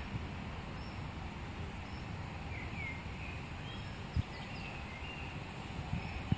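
Garden ambience: a steady low rumble with small birds chirping briefly in the background, and a single soft knock about four seconds in.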